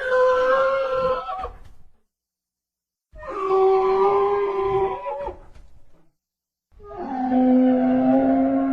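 Charonosaurus (hadrosaur) call sound effect: three long held calls, each lasting about two to three seconds with a short silence between, and each pitched lower than the one before.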